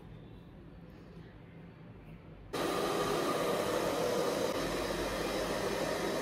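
Hand-held hair dryer blowing steadily, starting suddenly about two and a half seconds in after quiet room tone.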